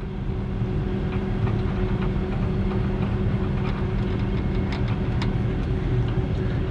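Steady low drone of a heavy truck's engine and winch pulling a disabled fire pumper up onto a wooden trailer deck, with scattered light clicks and creaks.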